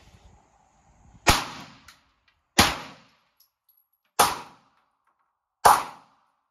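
9mm pistol fired four single shots about a second and a half apart during a timed target drill, each a sharp crack with a short echo.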